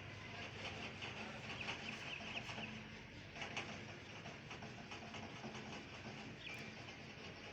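Birds chirping and clucking over a steady background noise.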